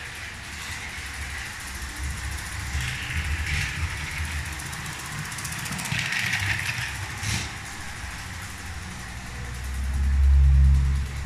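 Lego 12V electric train (set 7725) running on its track: a steady low motor hum and wheel rumble, with a few sharp clicks. The low rumble swells near the end.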